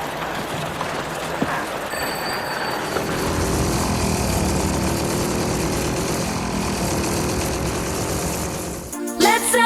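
A steady, noisy rumble like a machine or engine that grows a little louder, with no clear pitch. Dance-pop music cuts in abruptly near the end.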